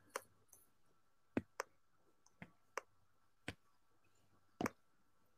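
About seven faint, sharp clicks at irregular intervals from someone operating a computer while setting up a screen share.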